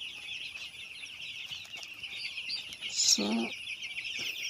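A flock of 5-day-old broiler chicks peeping continuously, many high chirps overlapping into a dense chorus. One brief, lower-pitched call cuts in about three seconds in.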